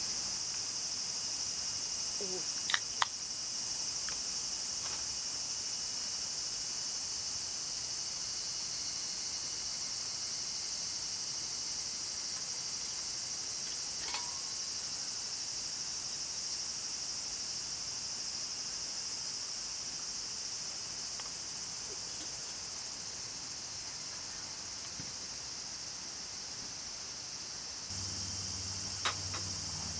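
Steady high-pitched chorus of insects singing, with a few sharp clicks about three seconds in and again midway.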